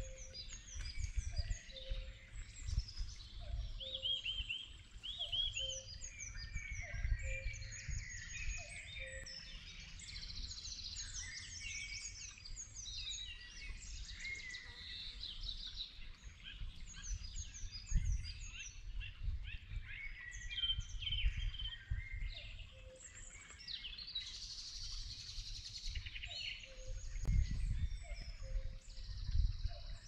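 Common cuckoo calling its two-note "cuck-oo" again and again, low beneath a dense spring chorus of songbirds chirping and trilling higher up. A low rumble runs underneath and swells twice in the second half.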